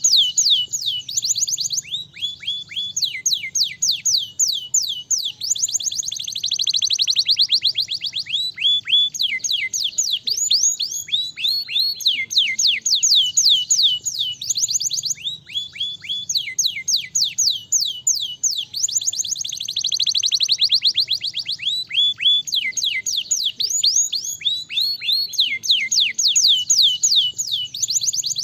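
Domestic canary singing a long, unbroken song: quick runs of high whistled notes that each sweep downward, grouped into repeating phrases, broken up by several faster rolling trills.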